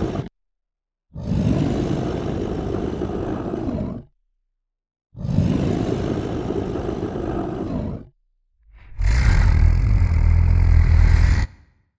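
Monster roar sound effects, one after another: rough, growling roars of about three seconds each, separated by dead silence. The last, about nine seconds in, is louder, with a heavy deep rumble.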